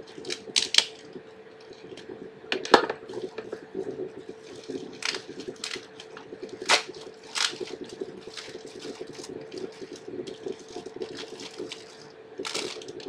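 Plastic packaging crinkled and handled while a phone charger is unwrapped: irregular sharp crackles and clicks, the loudest about three seconds in, over a steady faint hum.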